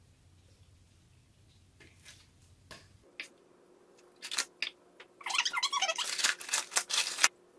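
Thick chili-soy sauce ladled onto raw blue crabs in a plastic bowl, then a rubber-gloved hand mixing it into the crabs: a few faint knocks at first, a couple of short plops about four seconds in, then a dense run of squishing and rustling from about five seconds in that stops sharply near the end.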